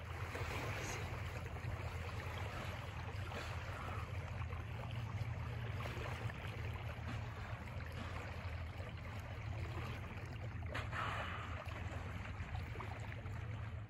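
Steady rush of water along a Bavaria 36 sailing yacht's hull while under way, over a low steady hum.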